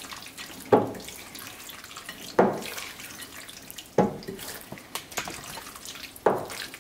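Silicone spatula stirring diced raw chicken in an oily spice marinade in a glass bowl: four wet squelching strokes, about one every second and a half.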